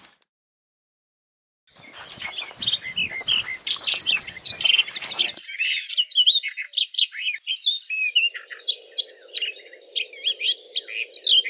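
Birds chirping and singing in many quick, rising and falling calls, after about a second and a half of silence at the start. A hiss under them cuts off suddenly about five seconds in, and a low steady hum joins about eight seconds in.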